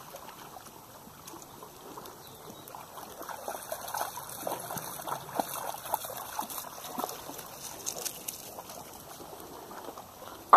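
Shallow, stony river water trickling, with small irregular splashes from dogs wading in the shallows.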